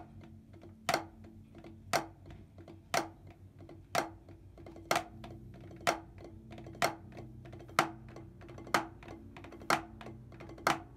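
Two players' drumsticks on practice pads, a rubber pad and a wooden board pad, slowly playing a broken-down rudimental snare exercise. A loud accented stroke falls about once a second, with quieter taps between.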